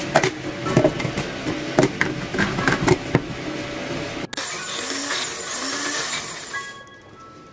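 Scattered knocks and clicks of kitchen items being handled, then, about four seconds in, a personal bullet-style blender whirring as it blends a cup of marinade ingredients, running for about two and a half seconds and then stopping.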